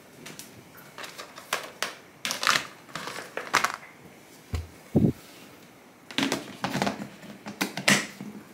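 Irregular plastic clicks and taps, with a dull thump about five seconds in: a clear plastic propagation box being handled and moved.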